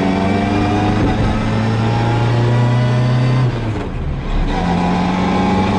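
Classic Mini Cooper S rally car heard from inside the cabin, its engine pulling with a slowly rising pitch over the whine of its straight-cut gearbox. About three and a half seconds in the sound drops briefly, then the engine pulls again at steady revs.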